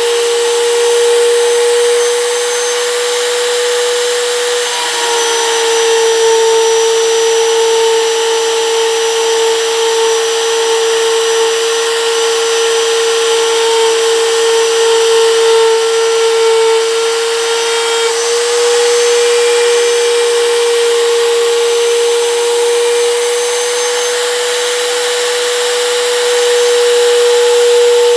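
Compact router running at full speed in a 3D router duplicator, its bit cutting a curved radius into a wooden block, giving a loud, steady high whine. The pitch sags a little about five seconds in and comes back up around eighteen seconds.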